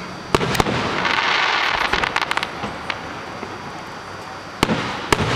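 Aerial fireworks bursting: two sharp bangs, then a crackling shower of many small pops, then two more bangs near the end.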